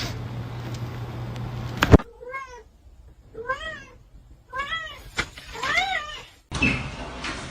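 A domestic cat meowing four times, about a second apart, each meow rising then falling in pitch. Before the meows, a steady hum and hiss end in a sharp, loud click about two seconds in.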